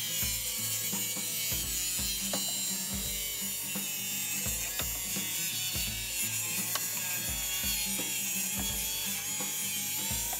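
DeWalt circular saw cutting through the overhanging ends of deck boards in one long pass along a chalk line, trimming them all even at once. Background music with a beat plays under it.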